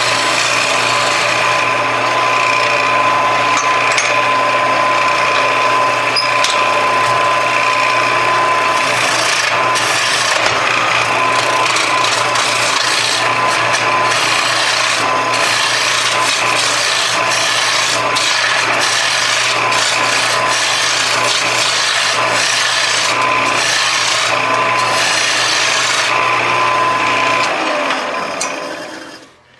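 Wood lathe spinning a maple blank while a hand-held turning tool cuts it, a steady scraping shave over the low hum of the lathe, as the blank is turned down to about 2 inches. Near the end the cutting stops and the sound falls away.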